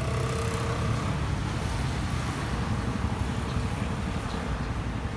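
Motor vehicle noise: a steady low engine rumble with road traffic.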